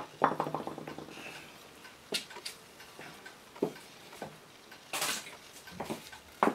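A metal-headed tool is set down on a wooden workbench with a brief rattling clatter. Scattered light knocks and a short swish follow as a tomahawk is picked up and handled.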